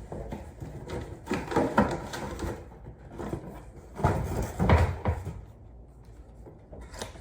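Unboxing handling noises: packaging rustling and a few knocks as items are taken out of a box, with the loudest thump about two-thirds of the way through.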